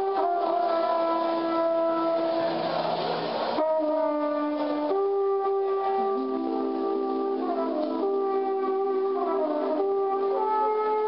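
Trumpet playing long held notes live, among other sustained tones, with a change of notes partway through and a few sliding, bending notes in the second half.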